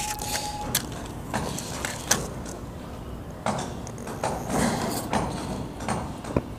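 Small canister gas burner being turned on and lit: several scattered sharp clicks, with a hiss of gas that grows stronger in the second half.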